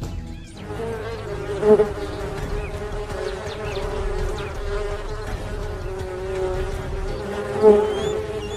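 Hornets buzzing in flight: a steady droning hum that swells loudly twice as one passes close, about two seconds in and near the end.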